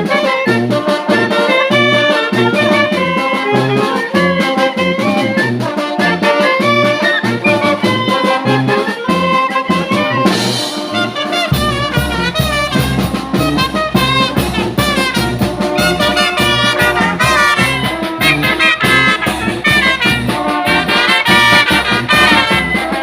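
A banda brass band playing an upbeat number: trumpets and trombones over a bouncing bass line, with a much deeper bass coming in about halfway through.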